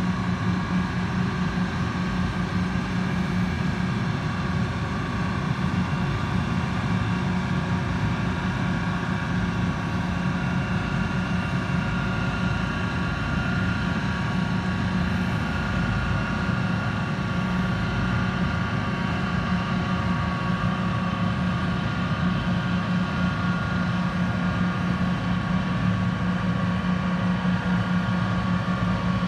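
A river towboat's diesel engines running in a steady drone as it pushes a string of barges, with a constant low hum.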